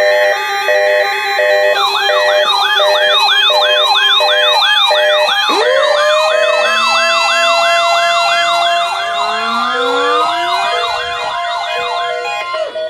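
Electronic siren alarm in a rapid yelp, sweeping up and down about three times a second in several stacked layers, with a slower falling-and-rising wail joining about halfway; it opens with a pulsing beep for about two seconds. It is sounded as the warning alarm of a weather radio's weekly alarm test.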